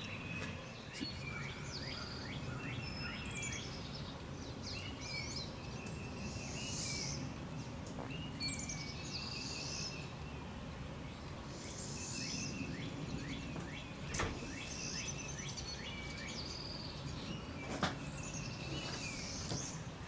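Several songbirds singing and chirping, a mix of quick trills and high whistled down-slurred notes, over steady low background noise. A few faint clicks come in between.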